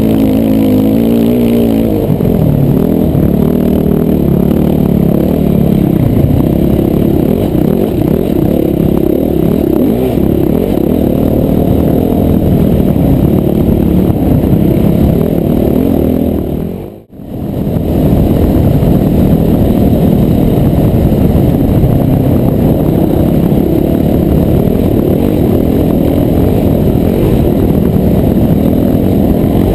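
Dirt bike engine running at speed across sand, with heavy wind rush on a helmet-mounted microphone. The sound drops out for a moment a little past halfway.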